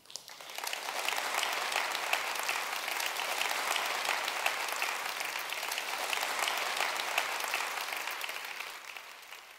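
Audience applauding, a dense patter of many hands, swelling in at the start and fading out near the end.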